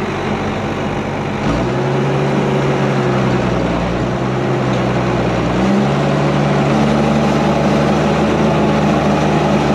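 Ford TW25's turbocharged six-cylinder diesel pulling hard under load with a flatlift subsoiler, heard from inside the cab. The steady engine note shifts about one and a half seconds in and again around six seconds, growing a little louder.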